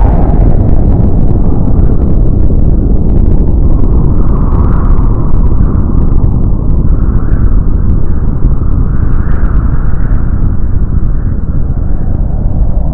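Loud, deep, sustained rumble of a huge explosion rolling on, with faint crackling through it.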